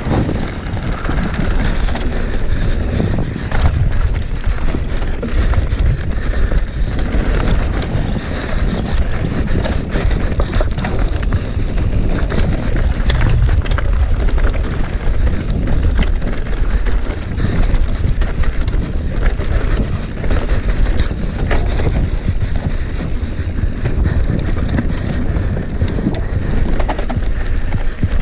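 Downhill mountain bike running fast down a rooty dirt trail: wind rushing over the microphone, with the tyres, chain and frame rattling and knocking continuously over roots and bumps.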